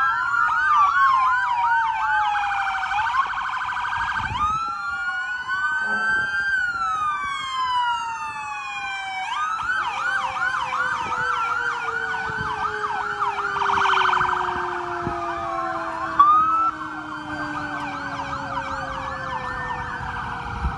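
Several emergency-vehicle sirens sounding at once, their slow wails and fast yelps overlapping, with a long, slowly falling tone underneath through the second half.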